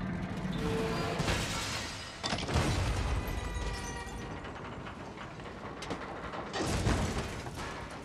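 Fire burning through a room with a low rumble, broken by two heavy crashes of falling debris, about two seconds in and again near seven seconds; the second comes as a car falls and lands on its roof.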